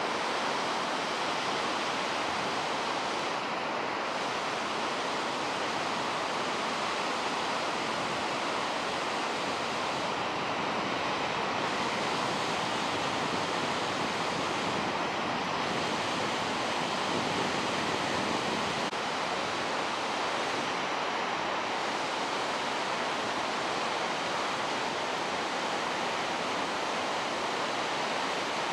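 Large waterfall on the Genesee River, a steady, even rush of falling water.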